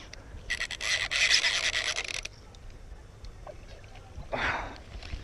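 Fishing reel clicking rapidly for about a second and a half, a dense rasping ratchet. A short rushing burst follows about four seconds in.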